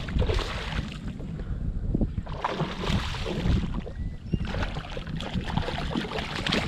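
Wind buffeting the microphone over water sloshing around a kayak, with irregular small splashes and knocks.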